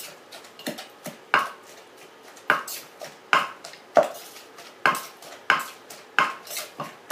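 Pestle pounding boiled eggplant and canned fish in a mortar: irregular dull thuds, about one or two a second.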